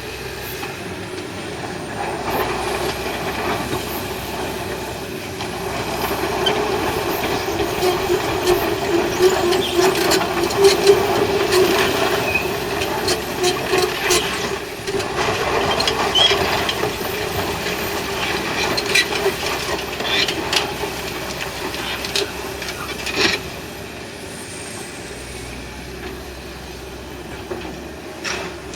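Excavator engine running under load, with a steady drone and many sharp knocks and clanks scattered through it. It works harder through the middle, then eases off near the end.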